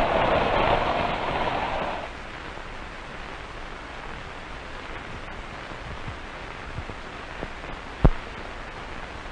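Lionel toy train running on the track, its noise cutting off about two seconds in. After that only a steady hiss of the old film soundtrack remains, with a single pop near the end.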